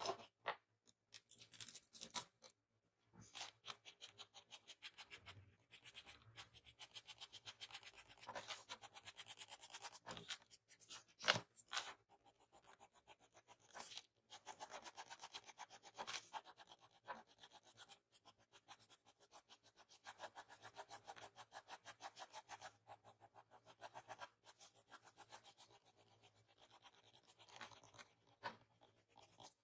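Mechanical pencil lead scratching faintly on paper in rapid, short, repeated strokes as hair strands are shaded in, with a sharper tap about eleven seconds in.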